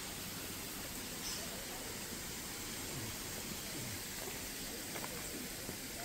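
Steady, even hiss of outdoor ambience, with faint distant voices now and then.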